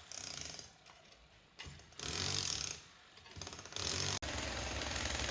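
Rapid, even mechanical pulsing of demolition machinery, in short stretches that start and stop abruptly. A steady fast pulsing runs on from about four seconds in.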